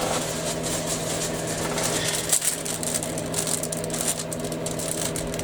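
A steady electrical or mechanical hum holds one low pitch with a few fainter higher tones above it. Faint, irregular small clicks and rustling sit over a light hiss.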